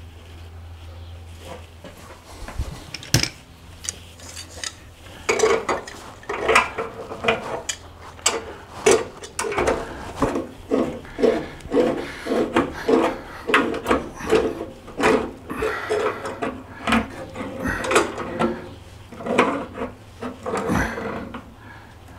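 Rhythmic rasping, rubbing strokes, about two a second, starting a few seconds in: hands working on brass plumbing fittings and thread-seal tape.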